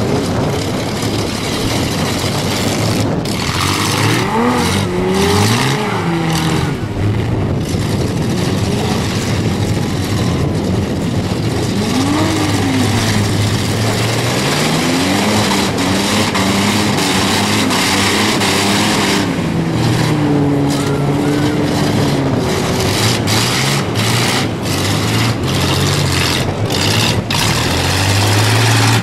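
Demolition derby vans' engines revving up and down over and over, with sharp crashes of sheet metal as the vans ram each other, clustered near the start and again near the end.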